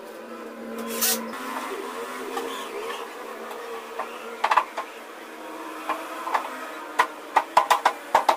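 Sharp knocks and clunks of work on a wall-mounted wooden cabinet, with a quick run of several knocks near the end, over a faint steady hum.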